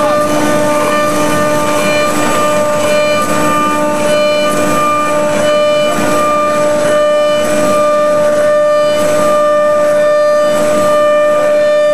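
CNC router's 5 hp automatic-tool-change spindle running at speed and machining an orthotic blank: a loud, steady whine of several pitched tones over a constant hiss.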